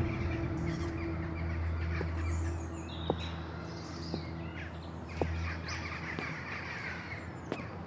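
Birds chirping over a low steady hum, with a few faint clicks about two seconds apart.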